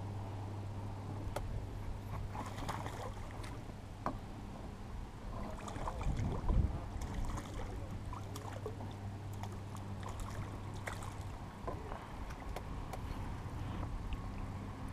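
Hooked fish splashing at the surface as it is reeled to the boat and netted, with one loud splash about six seconds in and smaller splashes and clicks around it. A steady low hum runs underneath.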